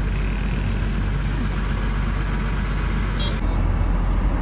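Steady truck engine and traffic noise heard from inside an oil tanker truck's cab in slow-moving traffic. A brief high-pitched squeal about three seconds in, and the rumble changes abruptly just after.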